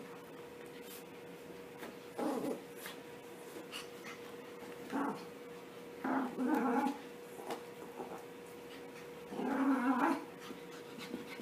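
Puppies growling in play: about four short bursts a few seconds apart, the longest near the end, over a faint steady hum.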